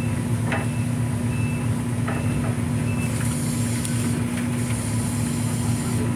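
Steady low drone of running machinery aboard a longline fishing boat, with a few short high beeps and a couple of knocks.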